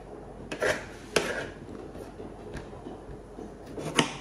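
Kitchen knife and a tomato being handled and cut on a cutting board: a few sharp knocks of the blade and produce on the board, the loudest near the end as the knife goes through the tomato.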